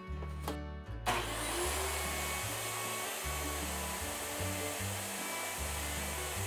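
Background country-style music, with a power tool starting about a second in and running steadily under it.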